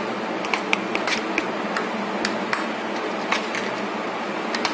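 Oil heating in a kadai over a gas burner, with irregular sharp crackles and pops over the steady hiss of the flame.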